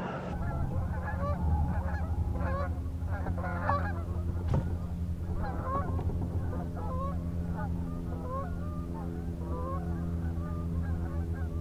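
A flock of geese honking, many short calls overlapping, over a steady low hum.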